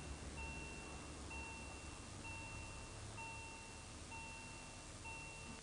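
Electronic warning tone of a railway level crossing, a steady beep lasting nearly a second and repeating about once a second, over a faint low rumble.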